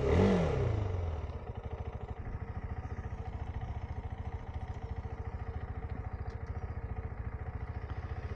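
KTM 390 Adventure's single-cylinder engine just started after its fuel pump was primed: the revs drop over the first second and it settles into a steady, evenly pulsing idle.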